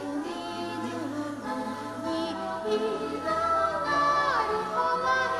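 A woman singing a slow melody live into a microphone, holding long notes and sliding down in pitch near the end, over a steady low drone.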